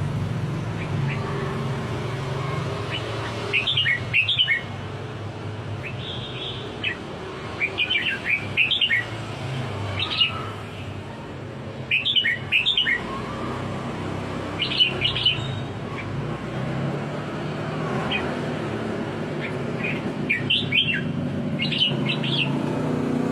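Red-whiskered bulbul singing short, bright warbled phrases in bouts every few seconds, over a steady low background hum.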